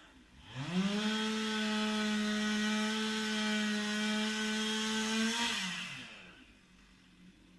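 Two-stroke chainsaw revving up, running at a steady high pitch for about five seconds, then winding back down toward idle.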